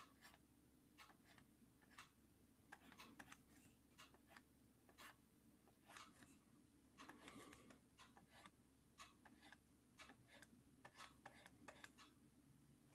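Near silence: faint room tone with many small, irregular clicks and taps.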